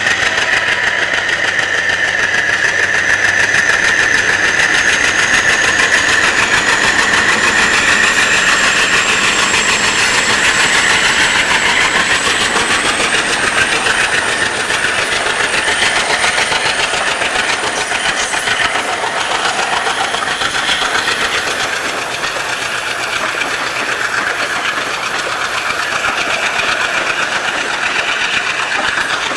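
ALCO WDM3D diesel locomotive working hard as it pulls a passenger train away, with a high whine that rises slowly in pitch as it gathers speed. The coaches' wheels then clatter past over the rail joints, and the sound eases in the second half as the train draws off.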